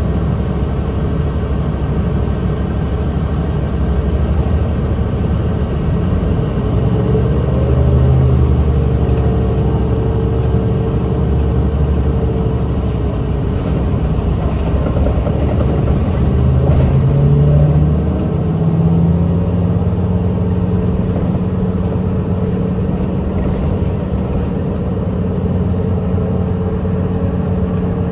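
Nabi 40LFW hybrid bus's Cummins ISL diesel and Allison EP40 hybrid drive running under way. Its pitch rises twice as the bus accelerates, about a quarter of the way in and again a little past halfway, and after each rise it holds a steady note.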